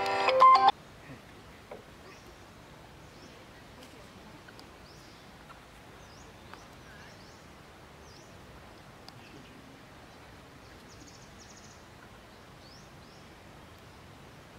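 A voice speaking briefly at the very start, then quiet outdoor ambience with scattered faint, short high chirps and a brief faint trill about eleven seconds in.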